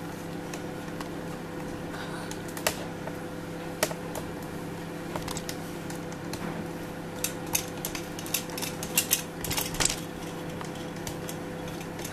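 Scattered clicks and knocks of bottles and household items being handled while rummaging at a kitchen counter, thickest about seven to ten seconds in, over a steady low hum.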